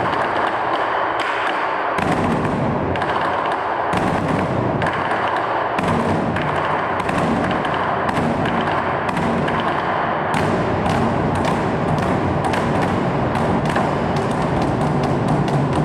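Several large Chinese barrel drums beaten with wooden sticks in a fast, dense rhythm of rapid strokes. The deeper drum sound fills in more fully from about six seconds in.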